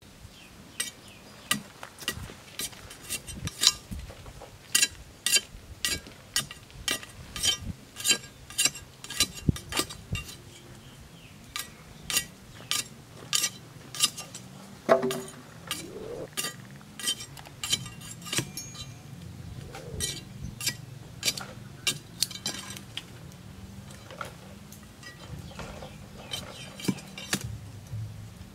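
A curved metal blade chopping into hard ground, sharp clinks about two a second, spacing out and softening in the second half.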